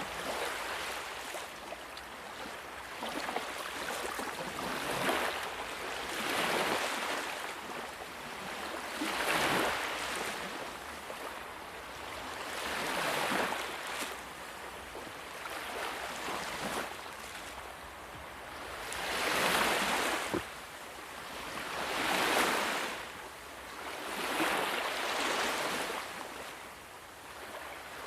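Sea waves breaking and washing on a shore, surging and receding every few seconds with a hiss.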